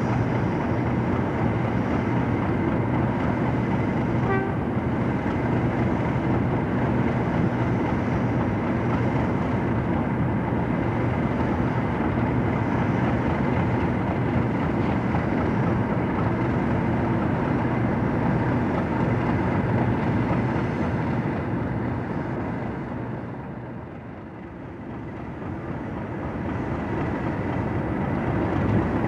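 Class 37 diesel locomotive's English Electric V12 engine idling with a steady low drone. The drone dips briefly a little past three-quarters of the way through, then comes back up.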